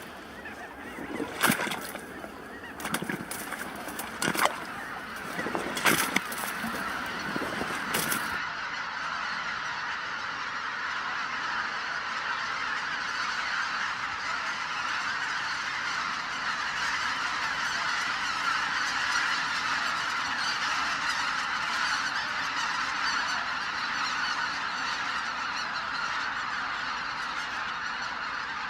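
A large flock of wild geese honking, many calls overlapping into a steady chorus. In the first eight seconds a few louder, sharper calls stand out, before the sound changes suddenly to a denser, even chorus.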